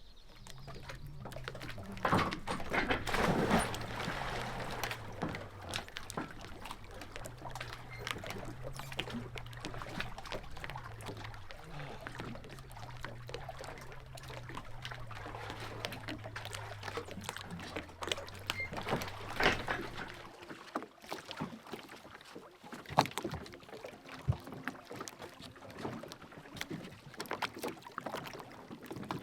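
Small boat's motor running at a steady hum over splashing water and wind noise, the motor stopping about two-thirds of the way through.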